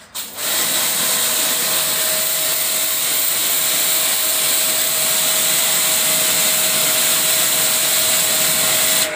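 Ballorex KS-7 2300 W electric pressure washer running, its spray gun jetting water onto a concrete wall. It makes a loud, steady hissing rush with a thin steady tone through it. It starts a moment in and cuts off suddenly near the end.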